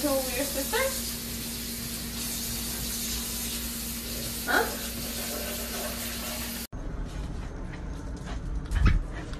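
Kitten meowing a few short times near the start and once more about four and a half seconds in, over a steady rushing noise with a low hum. The noise cuts off suddenly about two-thirds of the way through, followed by scattered knocks and a heavier thump near the end.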